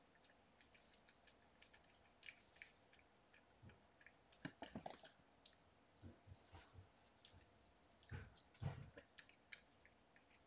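Kittens squirming and wrestling against their mother cat on a fleece bed: faint rustles and soft clicks, with louder scuffles about four and a half seconds in and again near the end.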